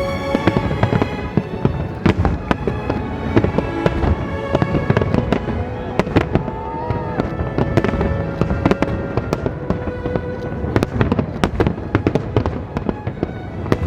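Fireworks bursting overhead in a dense barrage of bangs and crackles, the strikes coming thickest in the last few seconds, with classical violin music laid over them.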